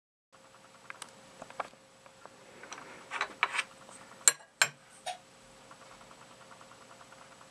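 Handling noise from a bone knife-handle slab being picked up and moved on a tabletop: scattered clicks and knocks, the two loudest sharp clicks close together about four and a half seconds in, over a faint steady hum and fast faint ticking.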